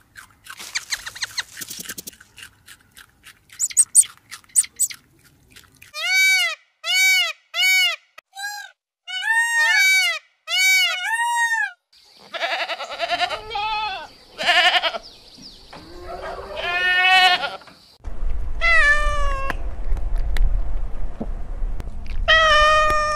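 A string of animal sounds: crisp crunching clicks for the first few seconds, as of rabbits chewing corn off the cob; then a run of short, evenly spaced high calls; then goats bleating with a wavering pitch; and a cat meowing near the end, each call falling in pitch.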